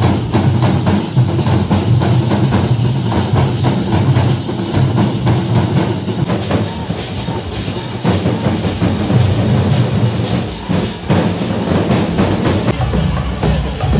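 Drum ensemble playing a dense run of rapid strokes.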